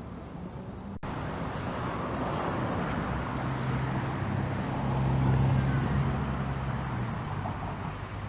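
A motor vehicle passing by: engine hum and tyre noise swell to a peak a little past the middle, then fade away.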